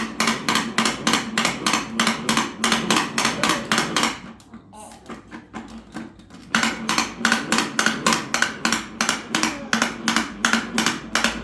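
Rapid, even knocking of hard strikes, about four a second: a run of about four seconds, a pause of about two seconds, then a second run of about five seconds. A steady low hum runs underneath.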